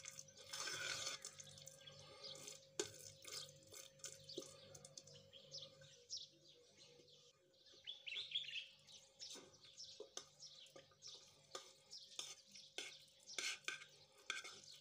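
Faint wet squelching and light clicks of a spoon stirring a soaked bread, egg and milk mixture in a bowl, then the mixture sliding and plopping into a metal baking pan in the second half.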